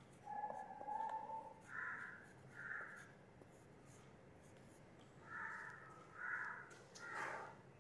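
Faint, short squeaks of a marker being dragged across a whiteboard, about eight separate strokes.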